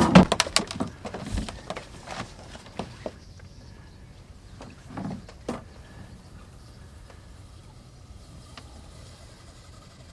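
Handling knocks on a fishing boat as a heavy sturgeon rod is taken up: a quick run of sharp clatter and a heavy thump in the first two seconds, two more knocks about five seconds in, then quiet.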